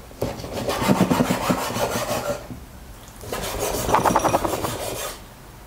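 Chef's knife sawing through raw chicken thigh against a bamboo cutting board as the bone and skin are trimmed away: quick repeated strokes in two bouts of about two seconds each, with a short pause between.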